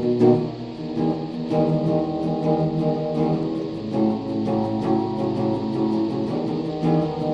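Guitar played live, holding sustained notes that shift in pitch every second or so, over a fast run of faint high clicks.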